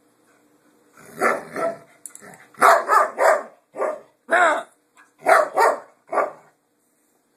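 A dog giving a run of about ten short barks in quick clusters, starting about a second in. The dog is afraid of a cable lying on the floor.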